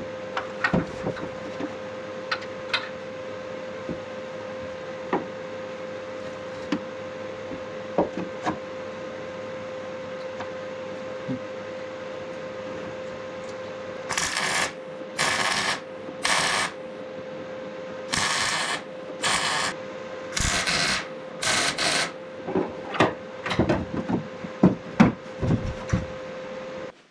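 Welding on the steel tubes of a car's roll cage, done as a run of about eight short welds, each half a second to a second long, over roughly eight seconds. They come after a stretch of only a steady hum and scattered clicks. A run of sharp clicks and knocks follows the welds, and the hum cuts off just before the end.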